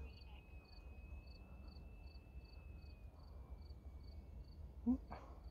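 Faint insect chirping, likely a cricket, at a steady rate of about three short high chirps a second. Under it runs a thin faint whine, likely the distant electric motor of the E-flite UMX Air Tractor, which dips in pitch and rises again. A short rising sound comes near the end.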